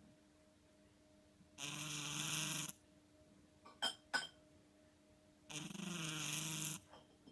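A sleeping house cat snoring: two rasping snores, each about a second long, some four seconds apart, with two short sharp clicks between them.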